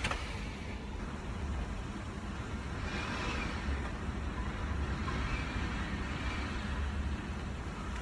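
Hurricane-force wind blowing in strong gusts, a steady rushing with a heavy low rumble of wind buffeting the microphone, strongest in the middle. Faint high whistling comes and goes from about three seconds in.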